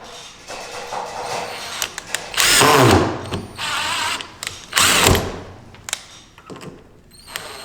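Cordless impact driver driving screws into wood, whirring up and down in two main loud bursts with shorter softer runs between.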